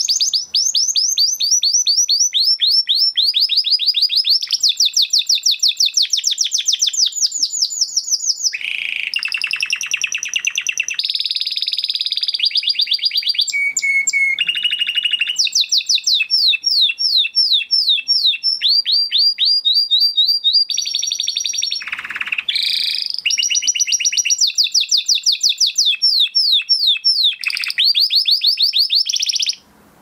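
Crested Spanish Timbrado canary singing a long, loud song of rapid trills and rolls that change pattern every second or two. The song cuts off suddenly just before the end.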